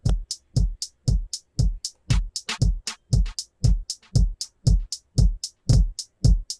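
Electronic drum loop: deep kick-drum hits about twice a second alternating with short bright hi-hat and snare hits. It is playing through a compressor plugin while its Transients control is turned down, which softens how sharply the hits pop out.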